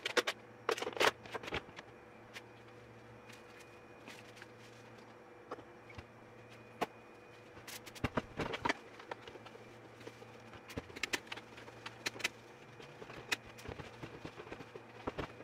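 Scattered clicks, knocks and rubbing from hands wiping down a sewing machine's plastic case with a cloth and a spray-bottle cleaner, busiest near the start and about eight seconds in, over a faint steady hum.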